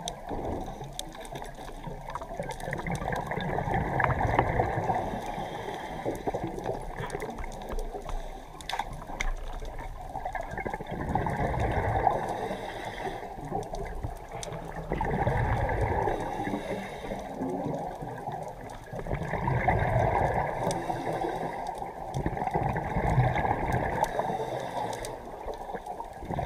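A scuba diver breathing through a regulator underwater: gurgling rushes of exhaled bubbles that swell and fade every few seconds, with quieter stretches between.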